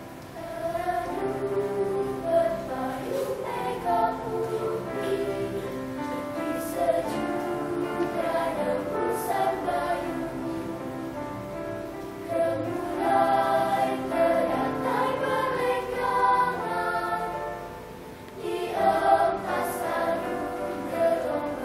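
Children's choir singing, with quieter passages in the middle and near the end before the voices swell louder again.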